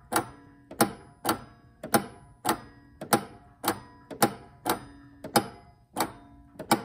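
Tape-drive solenoid of an antique Standard Electric Time master clock's bell-program mechanism cycling after being switched on, stepping the tape drum with a sharp metallic clack about every half second, each clack ringing briefly.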